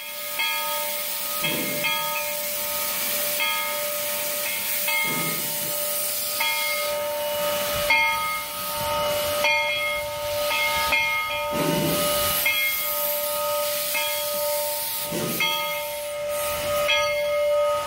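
Two-foot-gauge steam locomotive hissing hard as steam blows out around its cylinders, with a steady high ringing tone over the hiss and four low whooshes a few seconds apart.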